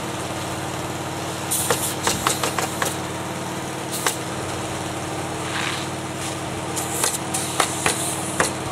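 An engine runs steadily under the roofing work, with clusters of sharp clacks as pneumatic roofing nailers fire.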